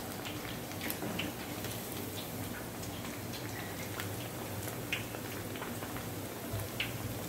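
Murukku dough spirals deep-frying in hot oil: steady sizzling and bubbling with scattered small pops and crackles, the dough still cooking.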